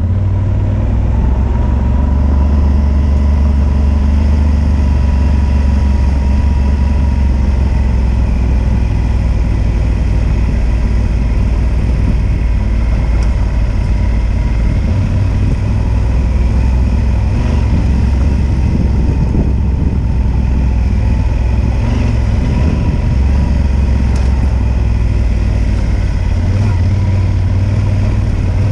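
Yamaha Super Ténéré adventure motorcycle's 1,200 cc parallel-twin engine running steadily as the bike rides a dirt two-track, with a heavy low rumble and only small shifts in pitch.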